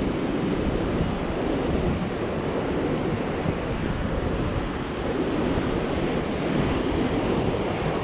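Ocean surf breaking on the beach, mixed with wind buffeting the microphone: a steady rush of noise.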